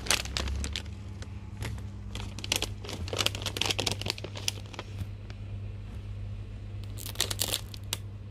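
Close, irregular rustling and crinkling: handling noise right at the microphone, with a steady low hum underneath.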